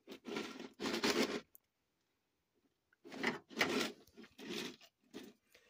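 Plastic containers being handled: several short bursts of rustling and scraping, with a pause of about a second and a half in the middle.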